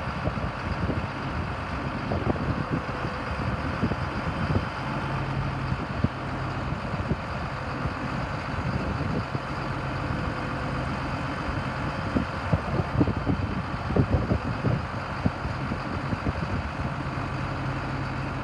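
John Deere tractor's diesel engine running steadily at low speed, with scattered knocks and crunches that bunch up about two-thirds of the way through.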